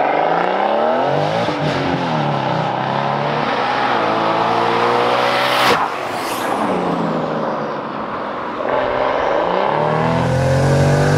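BMW M140i's turbocharged 3.0-litre straight-six accelerating hard, its note rising in pitch through several gear changes, with a single sharp crack about halfway through.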